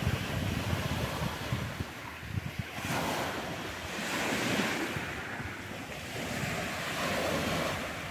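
Small waves breaking and washing up on a pebble beach, rising and falling in several swells. Wind buffets the microphone, most strongly near the start.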